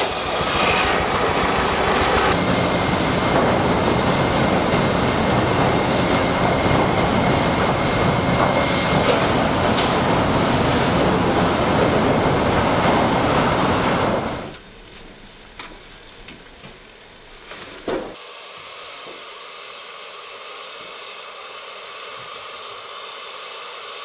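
A steam-powered mill's circular head saw running through a log for the first couple of seconds, then the loud, steady machinery noise of an automated modern sawmill's saws and lumber conveyors. A little past halfway this drops away to a much quieter background with a single knock, followed by a faint steady hiss.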